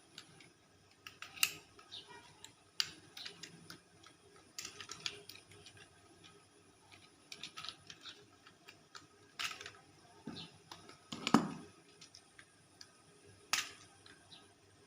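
Plastic parts of a transforming toy robot clicking and snapping as they are moved into place, in scattered irregular clicks with one louder knock about three-quarters of the way in.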